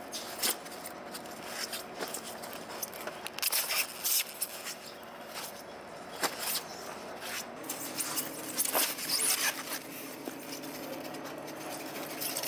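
Scattered clicks, knocks and scrapes of snow crabs and polystyrene fish boxes being handled and stacked, over a steady machine hum; a lower engine hum joins about halfway through.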